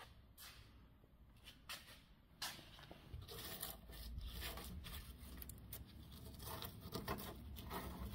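Gloved hand scraping and brushing dry debris and dirt out of a rusty tailgate hinge channel: scattered clicks at first, then a dense crackly rustling from about two and a half seconds in that grows busier towards the end.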